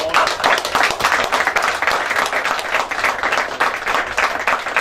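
Crowd applauding: many hands clapping in a dense, steady patter, starting just before and fading out just after.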